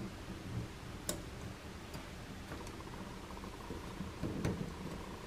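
Three light clicks and handling knocks as a small rubber seal on a metal spring ring is set into the inlet of a faucet's cartridge housing with a wooden stick and pressed home with a fingertip.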